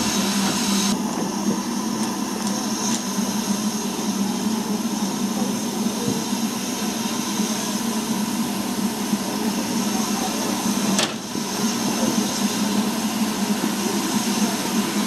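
BR Standard Class 4 2-6-4 tank steam locomotive standing with steam hissing steadily, escaping around its cylinders and front end; the hiss dips briefly about eleven seconds in.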